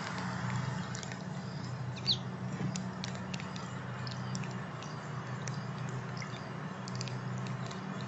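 Water bubbling and splashing from a small fountain in a birdbath, with many small drips and a steady low hum underneath. One brief high bird chirp about two seconds in.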